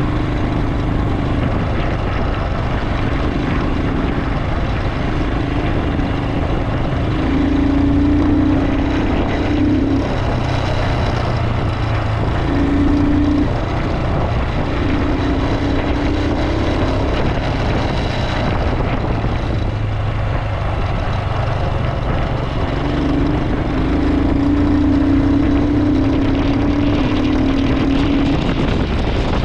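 Royal Enfield Himalayan 411's single-cylinder engine running under load on a rough climb, its note swelling and easing every few seconds as the throttle is opened and closed.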